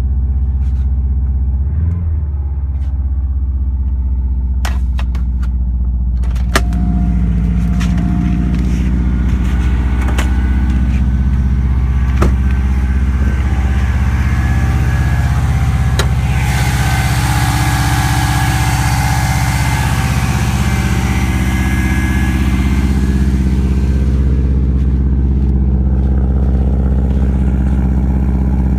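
Vehicle engine running steadily just after a cold start, making the bad noise that, by the owner's account, lasts until the engine warms to about 160–170°F. Sharp ticks come now and then in the first half, and a hissier stretch comes in the middle.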